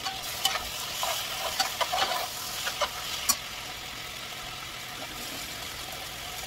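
Vegetables sizzling in a stainless steel pot, with a few clinks and scrapes of a spoon stirring against the metal in the first half, then a steady sizzle.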